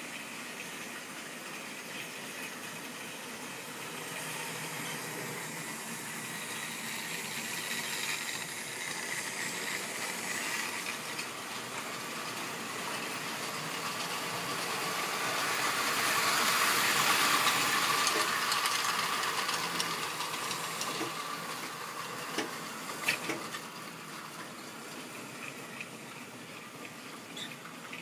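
Model railway train running along the track, its motor and wheels whirring. It grows louder as it passes close by about halfway through, then fades, with a few clicks soon after.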